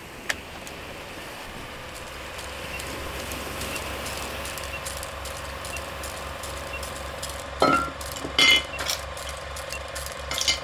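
Driftwood pieces and seashells being set into a bowl, clinking and knocking a few times, one knock with a brief ring, over a steady hiss.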